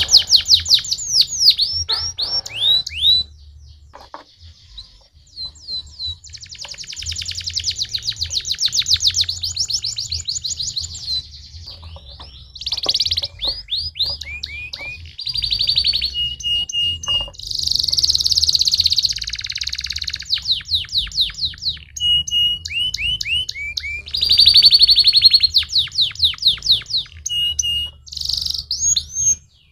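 Canary singing: high, fast trills and rows of quick falling whistle notes, in phrases separated by short pauses.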